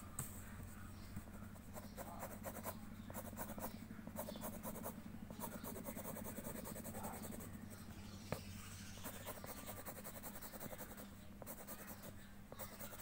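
Pencil scratching on paper in quick, repeated back-and-forth hatching strokes as an area is shaded in, with one sharp tap about eight seconds in.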